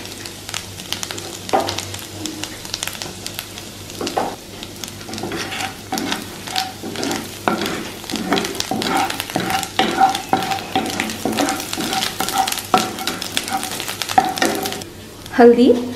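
Hot mustard oil sizzling and crackling in a kadai during a tadka (tempering) of dried red chillies, cumin, grated ginger and cumin powder, with a wooden spatula stirring and scraping against the pan.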